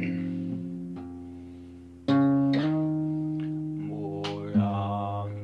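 Guitar chords played slowly, each struck and left to ring out and fade before the next. The loudest chord comes about two seconds in.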